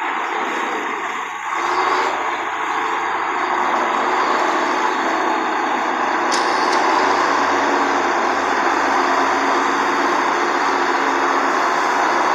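1954 LeTourneau-Westinghouse Tournarocker's GM Detroit two-stroke inline-six diesel with blower, running steadily and getting louder about two seconds in. A brief sharp click sounds about six seconds in.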